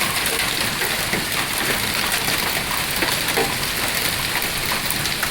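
Heavy rain and hail pelting down steadily, a dense hiss of many small impacts.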